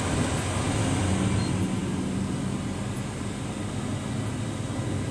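Steady engine drone and road rumble inside the cab of a moving vehicle crossing a bridge, with a faint steady hum.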